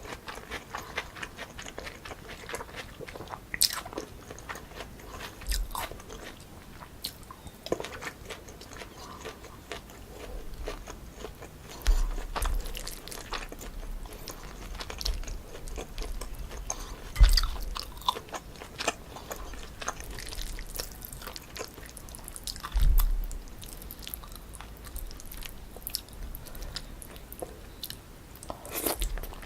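Close-miked eating: chewing and crunching bites of spicy cold chewy noodles mixed with crisp cucumber and apple, full of small wet clicks. A few louder, dull knocks stand out among them.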